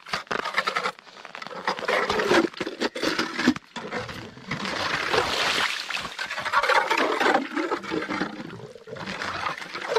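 Water and ice slush sloshing and splashing in a freshly drilled ice-fishing hole as the hand auger is lifted out and the slush is scooped out with an ice skimmer.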